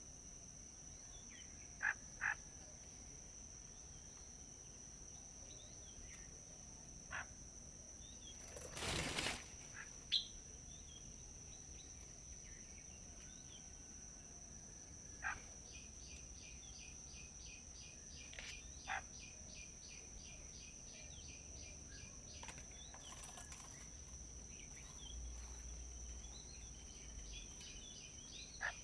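Scattered short, sharp bird chirps over a steady high-pitched insect drone. About nine seconds in comes a brief rustling burst, and from about halfway a fast, even series of high pulses, roughly three a second, runs on.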